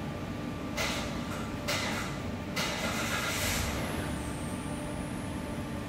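Steady workshop hum with three bursts of hissing air: two short ones in the first two seconds, then a longer one of about a second.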